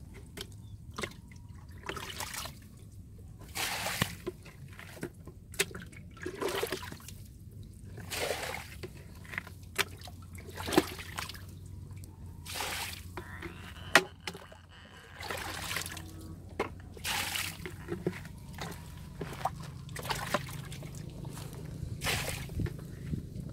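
Shallow muddy water sloshing and splashing as hands and a bucket scoop through it, in irregular splashes every second or two.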